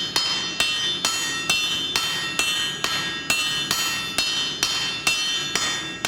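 Steady rhythm of striking blows on hot steel over an anvil, about two a second, each ringing with a bright metallic tone. This is team striking to flatten the cheeks of a forged axe head.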